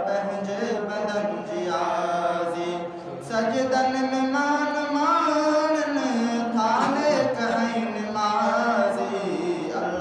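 A young man chanting a Sindhi naat solo and unaccompanied, in long held notes that glide up and down in pitch, with a brief pause for breath about three seconds in.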